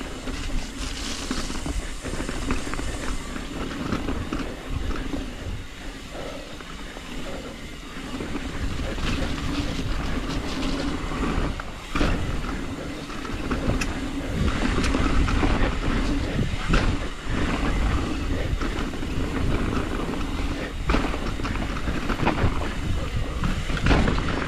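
Hardtail mountain bike (Transition TransAM) riding down a dirt trail: continuous tyre rumble over rough ground with the bike rattling and clattering, and a few sharper knocks from hits on the trail.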